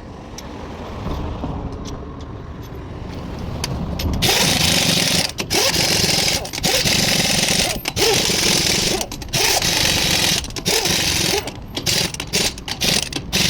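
Compressed-air tool running in long loud bursts of hissing with several brief stops, starting about four seconds in after a quieter build-up.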